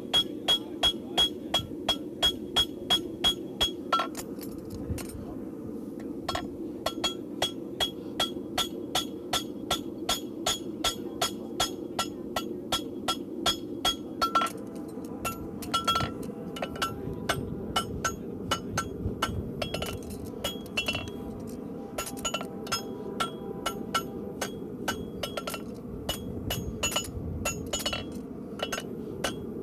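Farrier's hammer striking a steel horseshoe on an anvil while shaping it, each blow ringing: a quick regular run of about three blows a second, a pause about four seconds in, then a looser run of lighter blows. A steady low rushing noise runs underneath.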